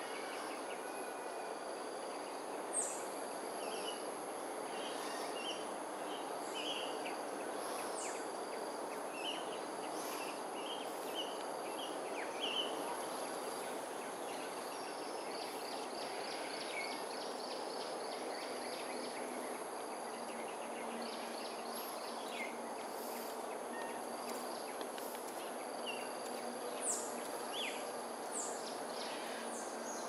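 Morning outdoor chorus: scattered short bird chirps and a couple of quick trills over a steady high insect drone and a constant low background hum.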